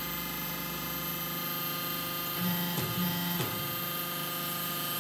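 Soil interlocking brick machine's hydraulic station running with a steady hum as the top mould presses down on the brick, with a couple of brief clicks about halfway through.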